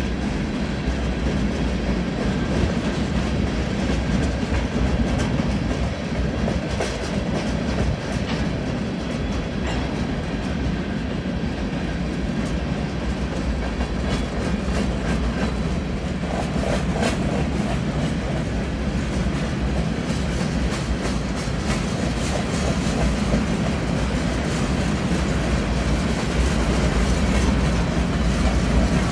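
A BNSF freight train of covered hopper cars rolling past: a steady noise of steel wheels on rail, with repeated clicks and clacks as the wheels cross rail joints.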